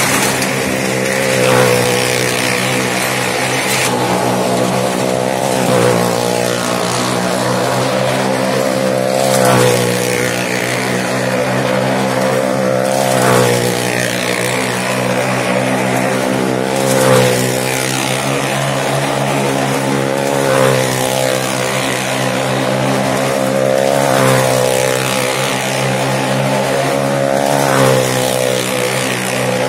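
Vehicle engine running at steady revs as it circles the vertical wall of a well-of-death arena, swelling in loudness about every four seconds each time it comes round past the rim.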